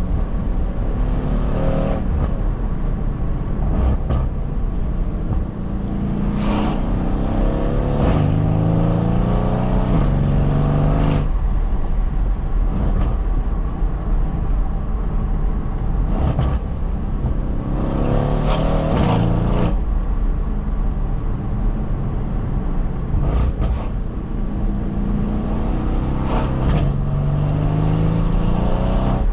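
Mercedes-AMG 4.0-litre twin-turbo V8 pulling through the gears, its note rising several times and dropping at each gear change, with sharp cracks around the shifts. Steady road and wind noise runs underneath.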